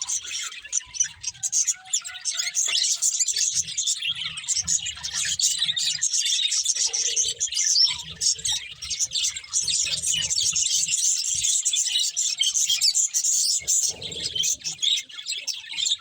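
Budgerigars chirping and chattering continuously in a dense run of rapid, high twittering notes.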